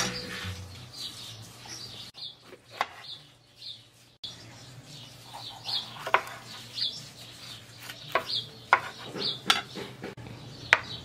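Small birds chirping in short repeated calls, with a few sharp clicks and knocks of dishes and utensils in between.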